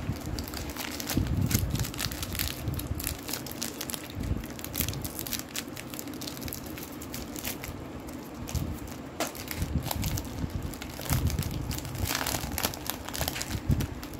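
Gold foil wafer wrapper crinkling and crackling in the hands as it is torn open and peeled back from the wafers.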